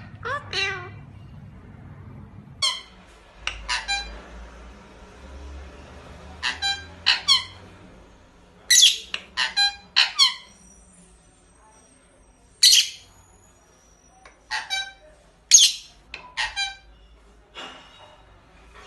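Pet parrot calling in short, sharp squawks and chirps, about twenty in all, some single and some in quick runs of three or four.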